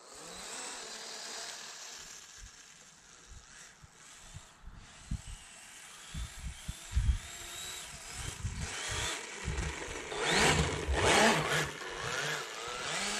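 RC snowmobile's 1/8-scale brushless electric motor whining as it drives through snow, the pitch rising and falling with the throttle, loudest about ten seconds in as it passes close by. Scattered low thumps come before that.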